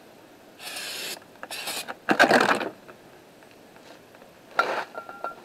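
Short hissing bursts from an aerosol can of brake cleaner sprayed onto a new brake rotor to strip its factory protective coating, several in a row with the loudest a little over two seconds in, mixed with light scraping and handling noise.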